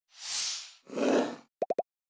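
Logo sting sound effect: a rising and falling whoosh, then a second, lower whoosh, then three quick pops in a row.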